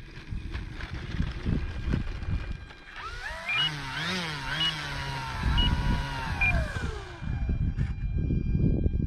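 Wind buffeting the microphone. From about three seconds in, the whine of the E-flite Carbon-Z Cessna 150T's electric motor and propeller rises and falls quickly several times with the throttle, holds, then drops in pitch. Four short high beeps sound during the whine.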